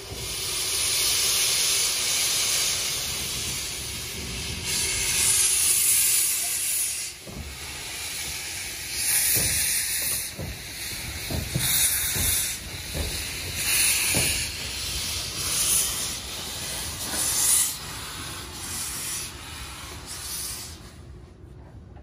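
Narrow-gauge steam locomotive 99 7237-3, a 2-10-2 tank engine, hissing steam. The hiss surges loudly again and again from about five seconds in, about once a second later on, and falls away near the end.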